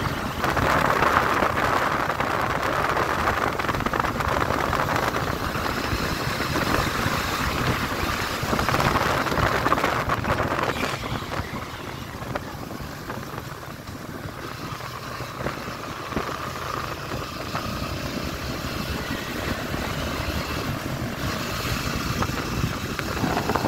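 Motorcycle riding along a paved road, heard from the rider's seat as a steady rush of wind and road noise with the engine underneath. It gets somewhat quieter about halfway through.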